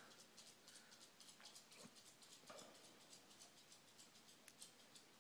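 Faint, rapid clicking of a Chihuahua's claws on a hardwood floor, several ticks a second, as it runs in circles.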